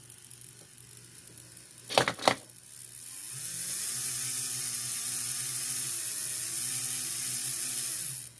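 Two sharp clicks, then the small electric motor of a Trix N scale locomotive spins up with a whine and runs steadily for about five seconds, its pitch wavering slightly, before cutting off suddenly near the end. It is running on bench power after its brushes and commutator contacts were cleaned, and it works better.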